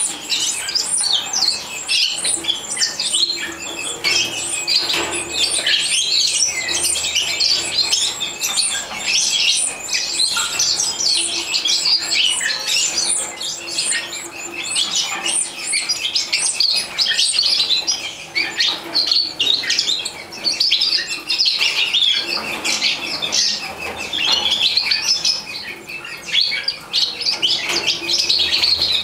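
European goldfinch chicks begging at the nest while the parents feed them: a constant, dense chatter of short, high-pitched chirps.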